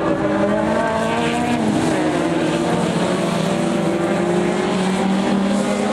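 Several small hatchback race cars' engines revving hard through a corner, their overlapping notes rising and falling as the pack passes.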